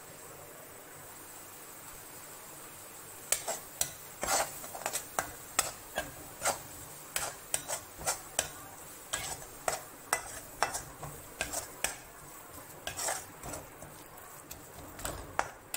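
Perforated metal ladle scraping and clinking against an aluminium kadai as powdered spices are stirred into a tomato-onion masala. The strokes start about three seconds in and come quickly and irregularly, a few each second.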